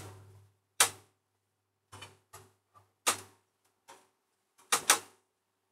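A run of about eight sharp knocks and clicks at irregular intervals, two close together near the end, over a faint low hum.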